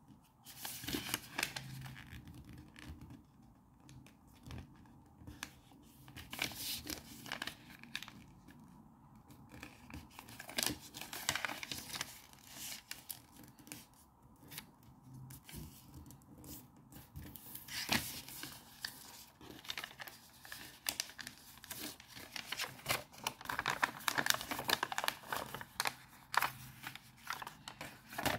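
Thin origami paper being folded and creased by hand: irregular crinkling, rustling and sliding strokes with sharp creasing scrapes, busier near the end.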